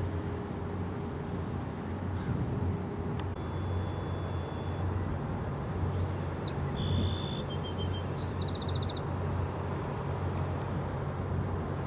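Tugboat engine running with a steady low drone, while a bird gives a few short chirps and quick trills a little past the middle.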